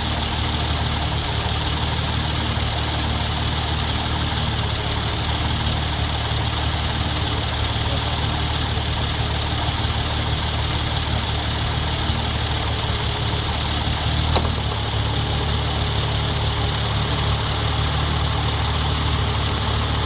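Hyundai Genesis Coupe 3.8 V6 idling steadily. About two-thirds of the way through comes one sharp click, after which the low engine note changes: the onset of a recurring knock that the owner suspects comes from a belt-driven accessory such as the A/C, not the engine itself.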